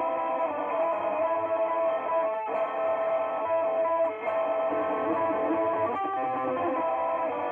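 Electric guitar playing black metal riffs: sustained chords that shift every second or so, with a brief break about two and a half seconds in and again about four seconds in.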